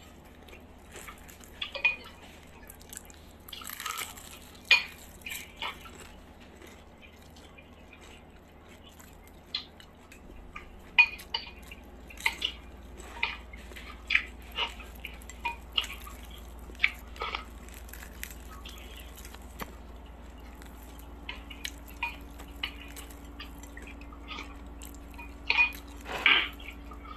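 Crispy fried chicken being torn apart by hand and eaten close to the microphone: irregular crunchy crackles of the breaded skin and wet mouth clicks.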